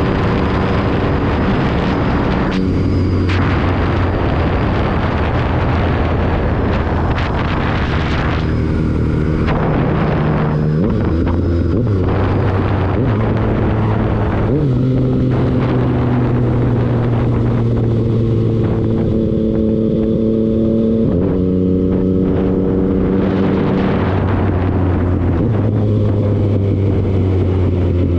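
Vehicle engine running on the move, its pitch holding steady for a few seconds at a time, then stepping up or down with changes of throttle and gear, over a rushing noise.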